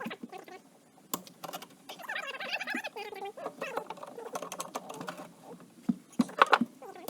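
Fast-forwarded workshop sounds of hand tools working on the ATV's parts: a quick, irregular run of clicks and taps, with a few louder knocks near the end and brief high, chirpy squeaks.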